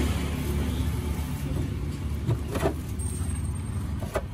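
Steady low rumble of a vehicle engine running close by, with a few short light knocks over it.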